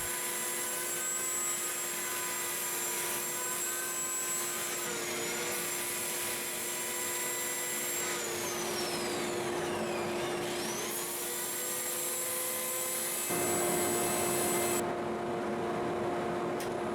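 Wood lathe running while the spinning Osage orange turning is sanded, a steady motor whine over sanding hiss. About eight seconds in some of the higher tones dip in pitch and come back up, and near thirteen seconds the sound changes.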